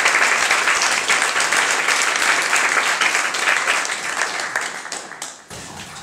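Audience applauding, the clapping thinning out over the last couple of seconds and dying away near the end.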